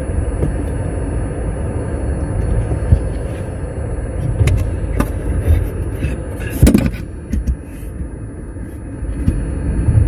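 Road rumble of a Nissan Leaf on the move, picked up from under the rear seat beside the battery pack, with a few short knocks and one loud, sharp burst about seven seconds in.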